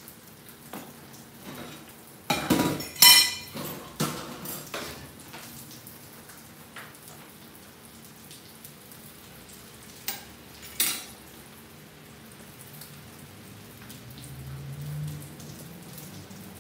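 Salmon steak frying in oil in a cast-iron skillet with a steady crackling sizzle. About two seconds in comes a loud burst of clattering kitchenware, then two sharp clinks around ten seconds in.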